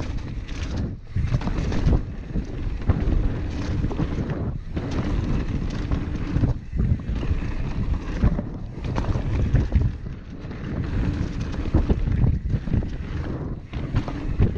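Wind buffeting the microphone on a fast mountain-bike ride, with a steady low rumble and many short knocks and rattles from the bike going over the trail.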